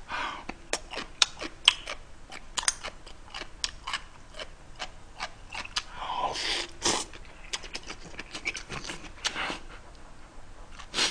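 Close-up eating sounds: wet chewing and smacking clicks while fish cake and noodles are eaten, with a noisy slurp of spicy ramen noodles about six seconds in.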